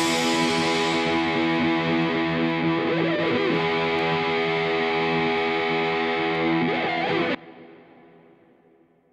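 Background rock music: a distorted electric guitar chord held and ringing, with a couple of bends. It cuts off sharply about seven seconds in, and the ring fades to silence.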